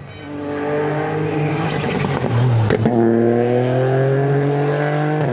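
Rally car engine approaching and accelerating hard, its revs climbing. About two and a half seconds in the revs dip and break with a sharp crack at a gear change, then climb steadily again.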